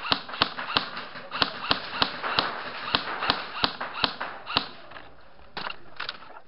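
Airsoft gunfire: a rapid string of single sharp shots, about three a second. It pauses briefly near the end, then a few more shots follow.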